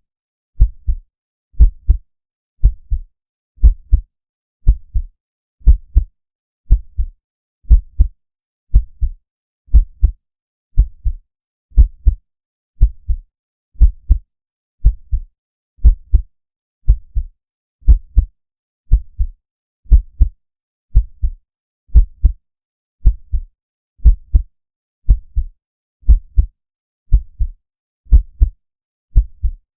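Slow heartbeat sound effect with deep bass: a steady double thump (lub-dub) repeating about once a second.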